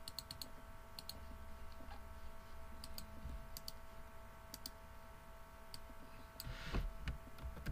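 Computer mouse clicking while arranging patterns in a DAW: scattered single clicks and quick pairs. A faint steady electrical hum runs under them, and a louder soft rustle comes near the end.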